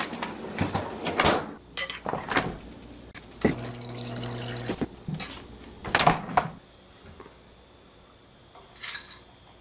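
Ice cubes clinking and knocking against a drinking glass, then the refrigerator door's water dispenser running water into the glass with a steady low hum for about a second, followed by a few more clinks of ice and glass.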